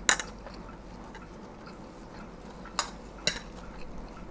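Cutlery clinking against a plate: one sharp clink right at the start and two more near the end, with a few faint ticks between.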